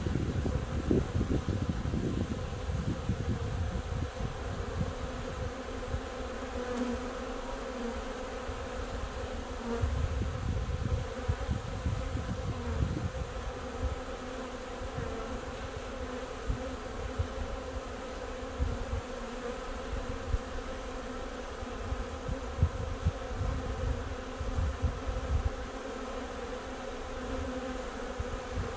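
A swarm of honey bees humming steadily as it crowds into the entrance of a hive: the swarm being hived. Low buffeting rumbles come and go underneath the hum.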